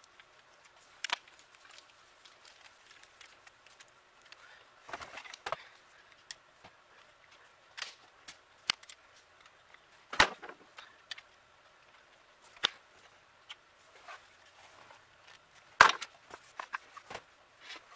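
Scattered small metal clicks and taps of a screwdriver turning the end-plate screws of a Delco Remy starter motor, with a few sharper knocks of metal parts being handled on a metal bench, the loudest about ten seconds in and near the end.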